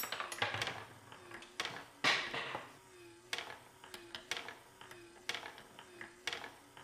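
Steel marbles rolling and clicking around a wooden funnel-shaped marble-run hole and against a bump, then dropping through the holes into a hand: a run of sharp clicks with a few short rolling rattles that fade out.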